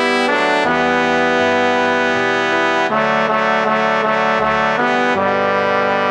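Music rendered from the score of a four-part male chorus arrangement, played with brass-like synthesized tones: sustained chords that change every second or so.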